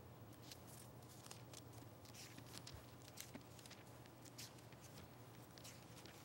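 Near silence, with faint rustles and flicks of thin Bible pages being leafed through.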